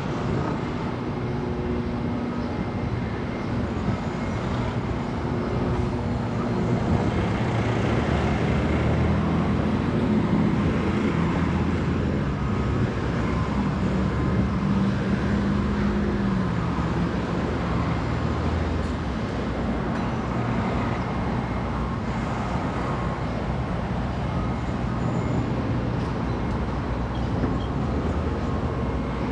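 City street traffic: a steady wash of passing cars, with engine hum that swells and rises slightly in the middle, then eases off.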